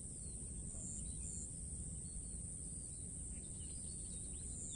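Waterside ambience: a steady, high-pitched insect drone with faint, scattered bird chirps over a low background rumble.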